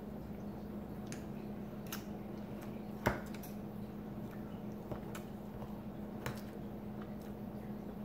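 A metal fork clicking and scraping against a bowl of drained canned tuna, with scattered small clicks and squishy mouth sounds of eating, the sharpest click about three seconds in. A steady low hum runs underneath.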